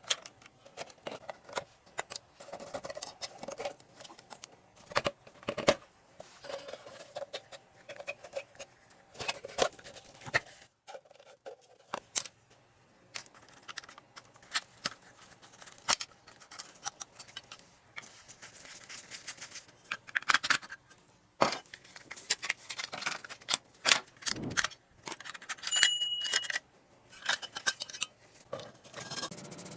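Metal parts being handled and worked by hand: irregular clinks, knocks and short scrapes, with a brief high ring about 26 seconds in.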